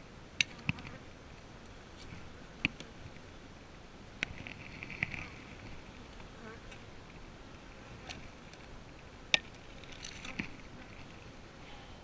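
Honeybees buzzing in patches around an open hive, broken by several sharp clicks and knocks, the loudest about nine seconds in.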